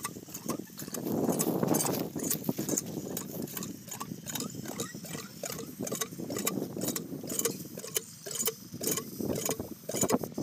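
Cast-iron hand pump being worked, its handle and plunger rod clanking and knocking with the strokes.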